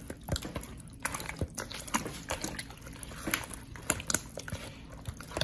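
Bare hands squishing and kneading raw chicken pieces in a wet mustard and hot sauce seasoning mix, giving irregular wet smacks and squelches.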